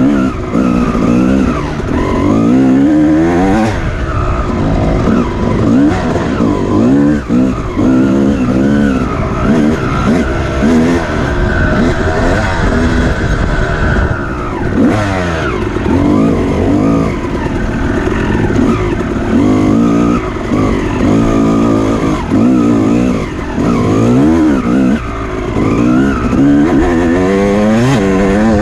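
Dirt bike engine revving hard during an off-road race, its pitch rising and falling again and again as the throttle is opened and closed.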